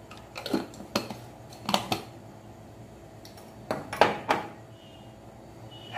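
Glass seasoning jars and a spoon clinking and knocking against the counter and each other as seasonings are handled: a few short knocks in two clusters, the first from about half a second to two seconds in, the second around four seconds in.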